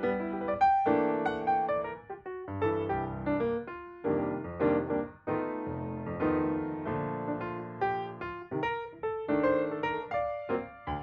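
Background piano music: a gentle melody of struck notes with chords underneath.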